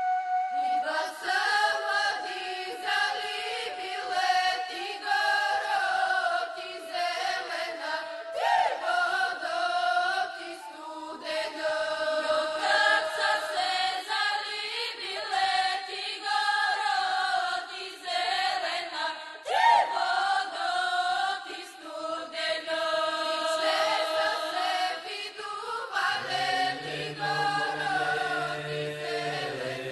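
A group of women singing a Bulgarian folk song together in high, strong voices, right after a flute's held note ends. A lower, steadier part comes in near the end.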